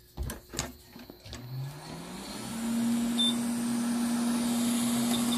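Hot air rework station's blower spinning up after a few clicks: a hum that rises in pitch, then settles into a steady whir with a hiss of air. The airflow is set a little too high.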